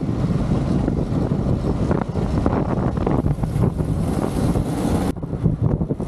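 Strong wind buffeting the microphone, with a farm vehicle's engine running underneath; a steady, unbroken roar.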